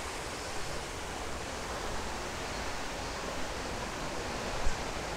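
Steady, even rushing outdoor noise with no voices, and one faint knock about four and a half seconds in.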